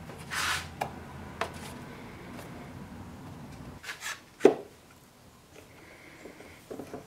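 One-handed bar clamps being squeezed and set against an MDF box, giving a few sharp clicks and knocks, the loudest about four and a half seconds in, over a low steady hum that stops about four seconds in.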